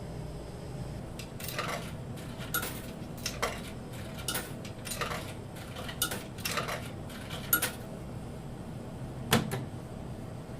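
A vending machine being rattled and knocked: a string of sharp metallic clicks and clatters, then one louder bang about nine seconds in.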